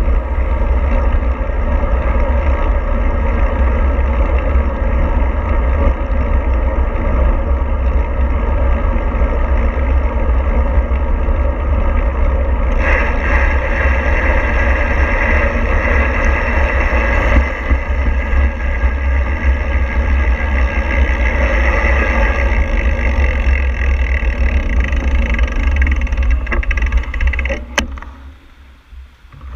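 Steady travel noise of a moving vehicle, a loud continuous rumble with heavy low-end. Near the end there is a sharp tick, then the noise falls away for about a second and a half.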